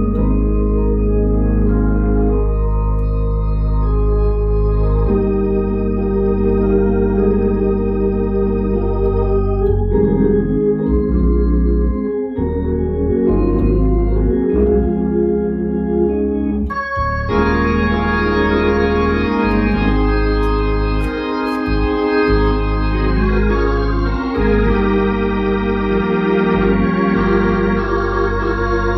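Hammond organ playing sustained gospel hymn chords over a steady bass line. About seventeen seconds in, the sound turns brighter and fuller.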